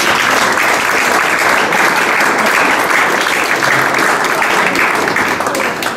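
Audience applauding: steady, dense clapping that eases off near the end.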